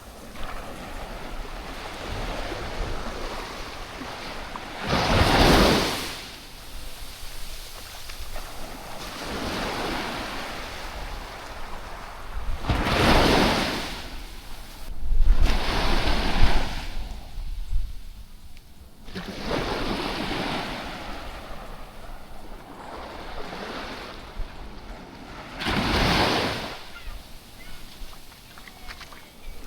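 Sea waves breaking and washing up a sandy beach. There are about five separate rushes of surf a few seconds apart, each swelling and fading, over a steady background hiss of the sea.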